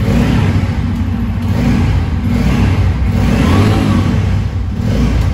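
Bajaj Pulsar N250's single-cylinder engine running, its note swelling and easing a few times.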